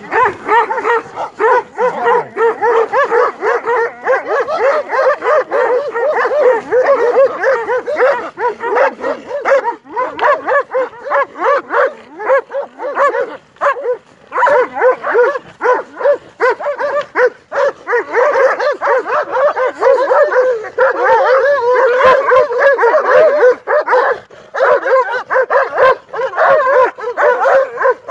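A pack of dogs barking and yipping together, many voices overlapping without pause, close to the microphone: the dogs are confronting and charging people.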